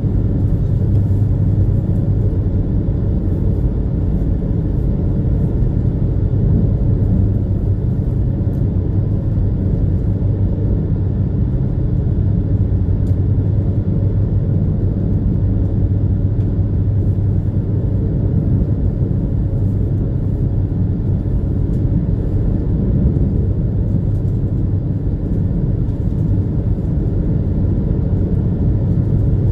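Steady low drone of a high-speed passenger ferry's engines under way, heard inside the cabin, unchanging throughout.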